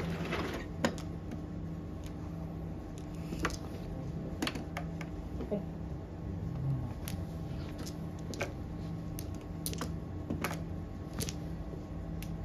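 Mahjong tiles clicking as they are drawn and set down on the felt of an automatic mahjong table, about one sharp click a second, over a steady low hum.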